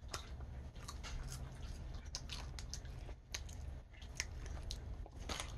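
Someone chewing popcorn with their mouth, with scattered crisp crunches and crackles.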